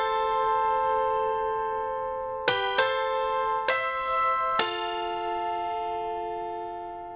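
Background music: slow keyboard chords, each struck and held, changing a few times and gradually fading.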